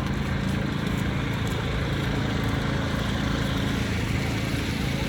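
Steady low rumble of an idling vehicle engine amid city street noise.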